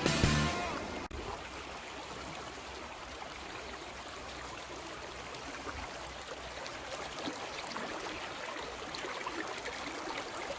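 Creek water flowing in a steady, even rush, after background music fades out in the first moments.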